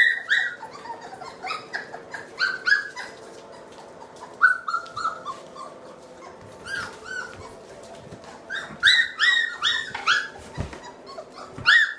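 Three-week-old Labrador retriever puppies whimpering and squealing: short high-pitched cries in runs of several, loudest at the start, about nine seconds in, and near the end.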